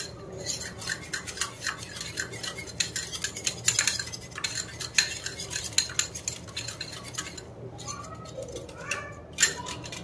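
Wire whisk beating thin maida batter in a terracotta bowl, rapid uneven clicks and scrapes of the wires against the clay, with a couple of short pauses in the second half. The oil has just gone into the batter and is being mixed in.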